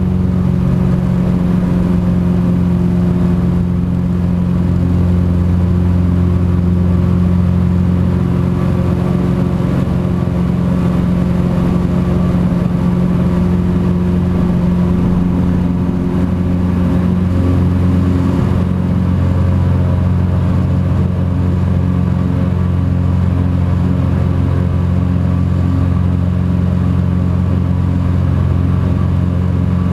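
Single-engine Cessna Grand Caravan's Pratt & Whitney PT6A turboprop engine and propeller running steadily through the takeoff roll and lift-off, a loud, even hum of low tones. The tone shifts slightly about two-thirds of the way through.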